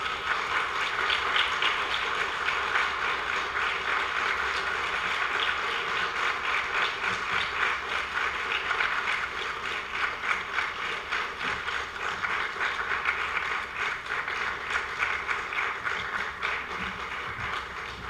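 Audience applauding: dense, steady clapping that starts suddenly and thins slightly near the end.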